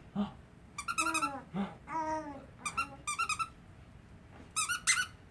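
Squeaky toy squeezed in several short bursts of quick, high squeaks, with a small child babbling between them.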